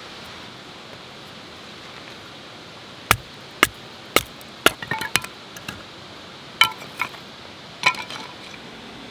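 A run of about ten sharp metallic clinks and taps with a brief ringing after some of them, the sound of metal camping gear being handled. A steady hiss lies under them.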